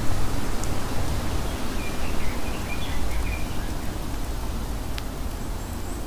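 Steady outdoor rushing noise with a strong low rumble, and a few faint, short bird chirps about two to three and a half seconds in; a single sharp tick near the end.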